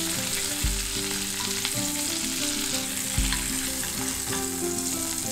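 Butter sizzling steadily in a hot frying pan around pieces of cured, cold-smoked rabbit loin as they pan-roast and are basted with a spoon.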